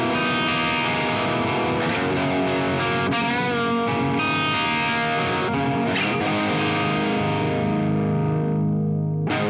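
Electric guitar through an MXR Duke of Tone overdrive pedal, played into a Laney Lionheart Loudpedal with Vintage 30 cabinet impulse responses: overdriven chords and single-note lines with wavering bent notes, then a chord left ringing until a fresh strum near the end.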